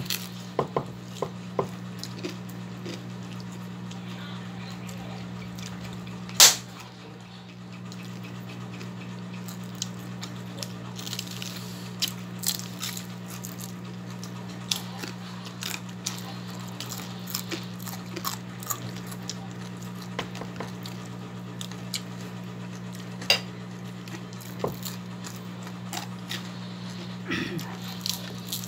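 Close-up eating sounds of fried tilapia picked apart and eaten by hand: many small scattered clicks and mouth noises, with a few sharper clinks on the enamel plate, the loudest about six seconds in. A steady low hum runs underneath.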